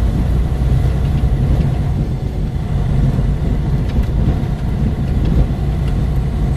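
Truck engine and drivetrain running steadily in fourth gear, a low, even rumble heard from inside the cab while driving.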